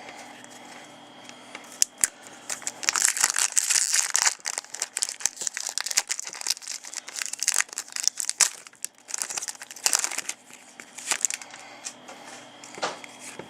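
Wrapper of a hockey trading card pack being torn open and crinkled, with irregular crackling and a few sharp clicks as the cards are handled. The crinkling is busiest a few seconds in and again near the end.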